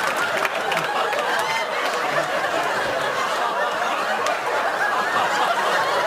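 Studio audience laughing loudly and steadily, with the last scattered claps of applause near the start.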